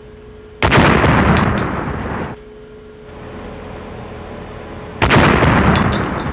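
Two loud explosion-like bangs about four seconds apart, each fading over a second and a half and then cutting off abruptly, as a spring-loaded powder bomb bursts on impact and throws its powder upward.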